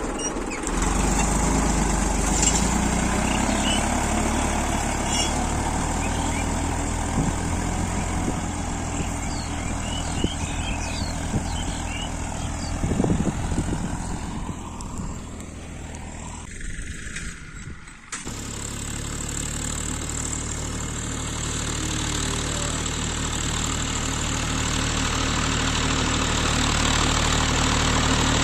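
Tractor engine running steadily under load while ploughing. The drone fades over a few seconds, then breaks off abruptly about eighteen seconds in and comes back louder and closer.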